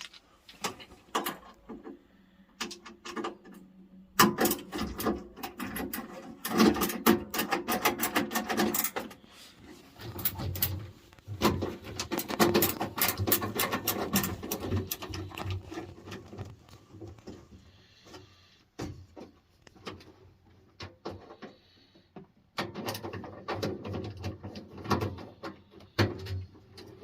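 Handling of hand tools and metal boiler fittings: dense runs of clicks, knocks and rattles with short pauses between them.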